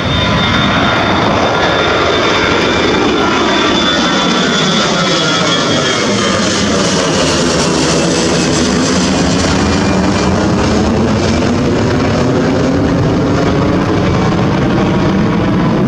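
Twin-engine jet airliner climbing out after takeoff and passing low overhead, its engines loud at takeoff thrust. A high whine slides down in pitch as it goes over.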